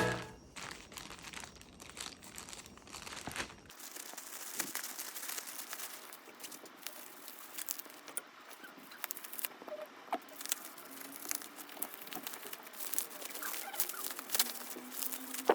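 Packaging of a portable air compressor being handled and opened: crinkling plastic and cardboard, with many small scattered clicks and rustles.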